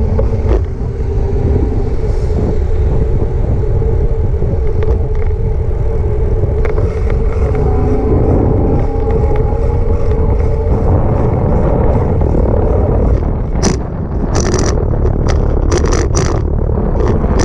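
Wind rushing over the microphone of a camera on a moving bicycle, with road traffic in the background. Several sharp rattles and clatters come in the last few seconds as the bike rolls over rough, cracked paving.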